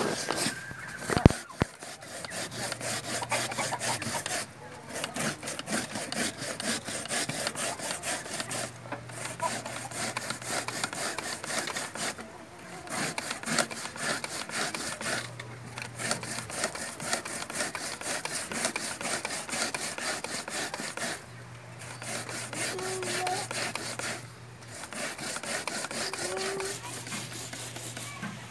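Peeled cassava root being grated by hand on a homemade grater, a punched metal sheet on a wooden board: quick rasping strokes over and over, stopping briefly a few times.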